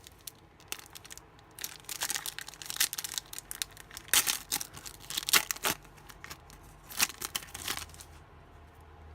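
Trading-card pack wrapper being torn and crinkled in the hands: a run of irregular, sharp crackles that dies away about eight seconds in.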